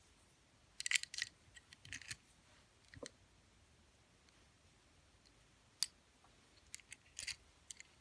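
Light metallic clicks and scrapes of a key being inserted and turned in an Abus 425/45 four-lever padlock and its steel shackle moving, in a few short clusters about a second in, near three seconds, and again towards the end.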